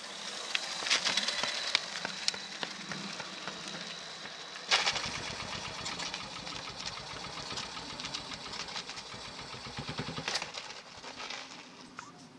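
Freshly rebuilt single-cylinder 500 racing motorcycle engine being push-started for its first run after a rebuild. Light clicking at first, then about five seconds in the engine fires with a sudden bang and runs unevenly in rapid beats for several seconds before fading away near the end, nearly but not quite catching.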